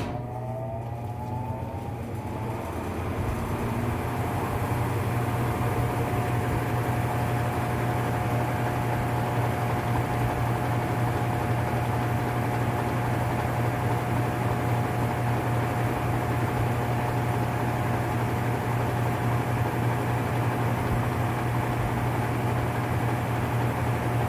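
Whirlpool top-load washer in high spin: the drive motor and basket spin up over the first few seconds with a rising whine, then run steadily with a low hum and a rough grinding noise, which the technician traces to a defective gear assembly.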